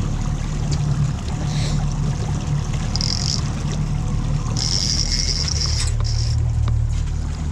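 Yamaha 60 outboard motor running steadily at trolling speed, with water washing past the hull. A high buzz comes and goes two or three times in the middle.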